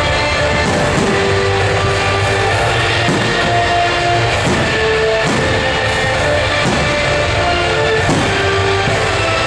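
Loud rock-style music with guitar and drums, the soundtrack of a pyromusical fireworks display, with a sharp beat about once a second.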